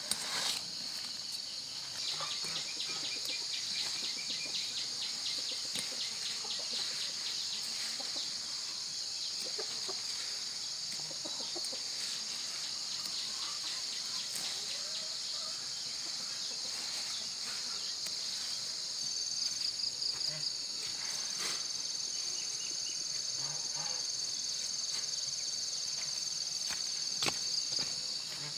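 Steady, high-pitched chorus of insects, with a fast, even pulsing call on top for several seconds near the start and again briefly about two-thirds of the way in, and scattered light clicks.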